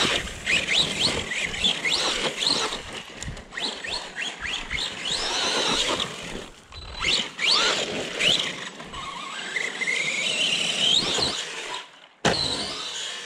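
Arrma Big Rock RC monster truck's electric motor whining up and down in repeated throttle bursts, then one long climbing whine about nine seconds in; it cuts off suddenly near the end.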